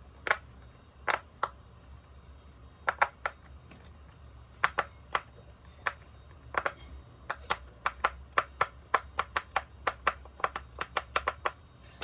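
A silicone push-pop fidget toy having its bubbles pressed, each one giving a sharp little pop. There are a few scattered pops at first, then a quick run of about three to four pops a second in the second half.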